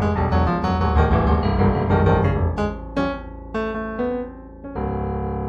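Background piano music: busy, full notes for the first half, then a few separate struck notes left to ring, and a new sustained chord entering near the end.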